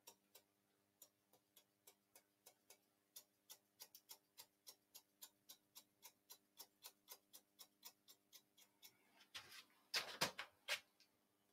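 Hairdressing scissors (Alpha Italia Platino) point cutting into a fringe: a steady run of faint, short snips, about three or four a second, with a couple of louder sounds near the end.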